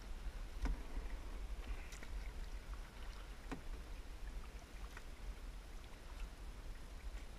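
Kayak paddle strokes alternating sides, the blade dipping into the river with faint splashes and drips and a few small knocks, over a low steady rumble.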